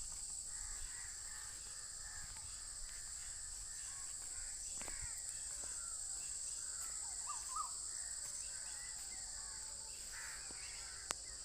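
Rural ambience: a steady high-pitched insect drone with scattered bird calls and chirps, including a few short rising calls just past the middle. A single sharp click near the end.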